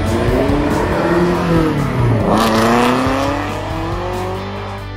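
A race car's engine passing close on track: its note falls as it slows over the first two seconds, then climbs again as it accelerates away.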